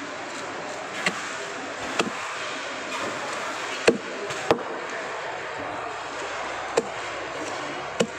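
Heavy cleaver chopping through a threadfin fish onto a thick chopping block: about six sharp chops at uneven intervals over a steady background hiss.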